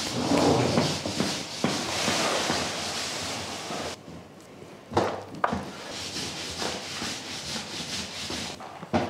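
Hands handling raw samsa dough on a cloth-covered wooden board: soft rubbing and rustling of the cloth, with two light knocks about five seconds in.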